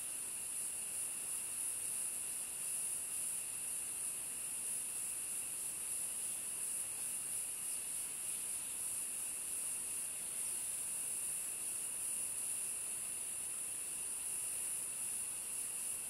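Steady, high-pitched chorus of insects, a continuous shrill hiss with a fainter, lower steady whine beneath it.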